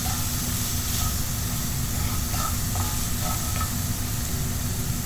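Mashed tinned tuna with chopped onion, ginger, garlic and green chilies sizzling steadily in a pan with a little oil as it is sautéed and stirred.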